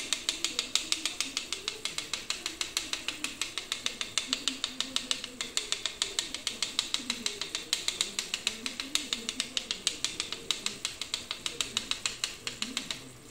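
A metal teaspoon rattling rapidly against the wire mesh of a small hand strainer, about five taps a second, as flour is sifted through it onto meat in a pan to thicken the sauce.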